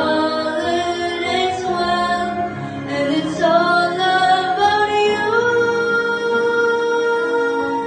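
A girl singing a slow song into a microphone, holding one long note over the last couple of seconds.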